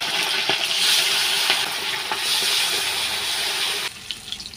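Fish deep-frying in hot oil in a kadai, a loud steady sizzle that drops off sharply near the end as the fish are lifted out of the oil, leaving light crackling.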